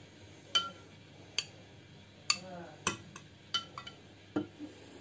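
A utensil lightly clinking against a glass bowl as yogurt starter is scooped out into a jar of warm milk: about eight separate short clinks, spread unevenly over a few seconds.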